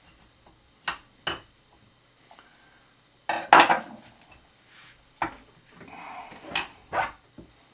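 Metal parts of a knife-maker's vise knocking and clinking as they are handled and repositioned. There are two sharp clicks, then a louder cluster of knocks a few seconds in, and more knocks with some scraping near the end.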